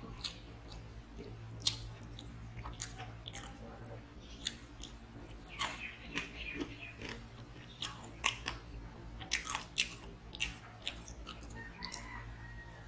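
Close-up eating sounds: a person chewing mouthfuls of rice and chicken curry, with irregular wet smacks and clicks, while fingers mix rice on the plate. A steady low hum runs underneath.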